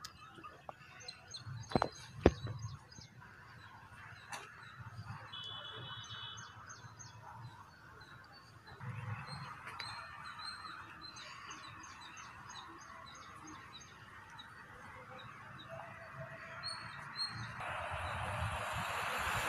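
Small birds chirping repeatedly in outdoor background ambience. Two sharp knocks come about two seconds in, and a rushing noise builds near the end.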